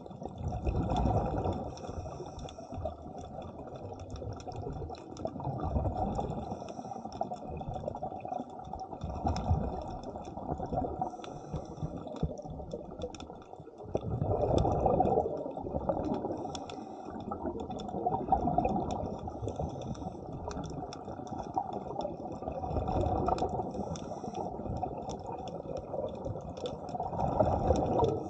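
Underwater: a diver's exhaled breath bubbling from the regulator in a louder surge every four to five seconds, over a steady underwater rush between breaths.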